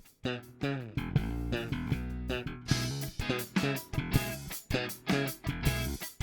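Lakland Skyline 44-64 GZ four-string electric bass with passive EMG GZR-PJ pickups, played solo as a run of plucked notes with a few sliding notes between them. It is recorded direct through a preamp set flat, with no amplifier.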